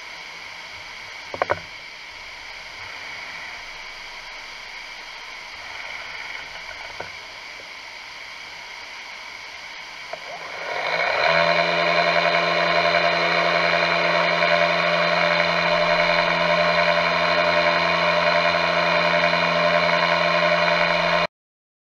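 CNC vertical mill: a sharp clunk about a second and a half in and a fainter one around seven seconds while tools are changed, over a steady hiss. About eleven seconds in, the spindle comes up to speed and the machine runs with a steady whine of several tones as it mills a metal block under flood coolant, then cuts off suddenly near the end.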